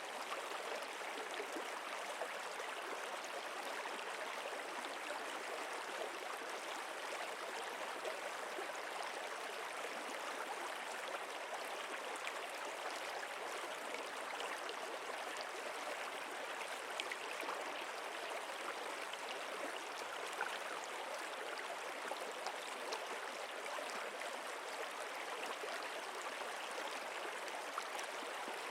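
Stream water flowing and gurgling steadily, with no change in level.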